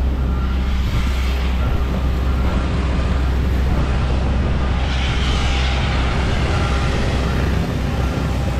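Heavy diesel engine of a concrete pump truck running steadily under load while pumping concrete, a constant low drone, with hissing swells about a second in and again around five seconds in.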